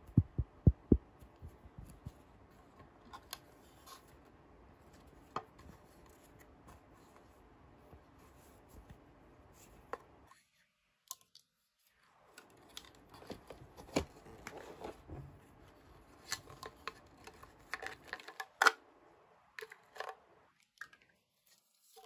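Unboxing handling sounds from the toy's pieces and packaging: a few quick low taps at the start, then scattered clicks, taps and light rustling. There is a cut to dead silence about halfway, and the handling comes back busier after it.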